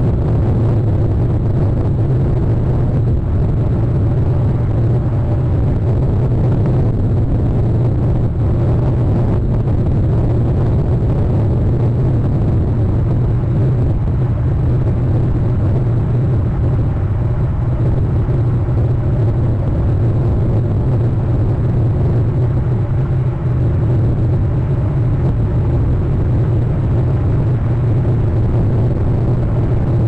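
Steady low rumbling noise with no distinct calls or knocks.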